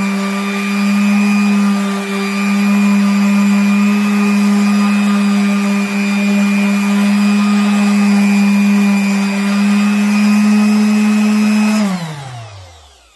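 Electric random orbital sander running steadily as it sands the glossy cured finish of a wood slab. Near the end it is switched off and its hum falls in pitch as the motor winds down.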